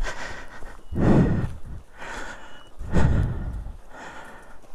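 A person breathing heavily close to the microphone, about one breath a second, with every other breath louder.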